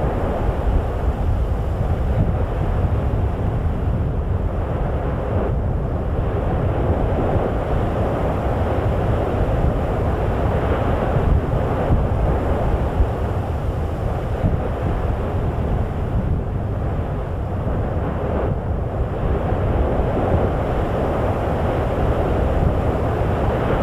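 Steady wind rushing and buffeting the microphone, a continuous deep rumbling noise without any distinct events.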